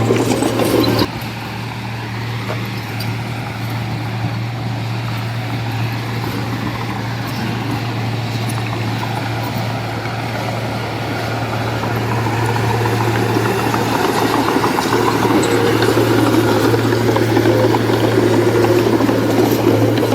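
Diesel engine of heavy construction machinery running with a steady low hum. There is a sudden drop in level about a second in, and the engine noise grows louder and fuller over the second half.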